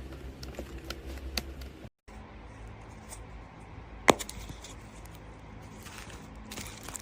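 Quiet room noise with a few soft clicks of small objects being handled, then one sharp click a little after four seconds in. The sound cuts out completely for a moment about two seconds in.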